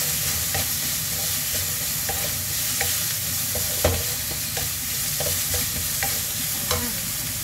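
Wooden spatula stirring and scraping chicken and carrot strips with pesto in a coated wok, with frequent light knocks against the pan over a steady sizzle of frying. The sharpest knock comes about four seconds in.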